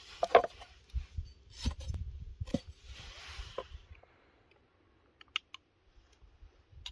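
Close handling sounds: rustling and several sharp clicks as twine is pulled tight and tied off around the raw chicken. After a quiet spell, a couple of light clinks of a metal spoon against a glass jar and a metal ladle.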